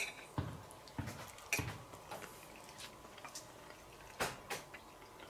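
Knife and fork clicking against a plate while eating: a handful of scattered light clicks, two close together about four seconds in.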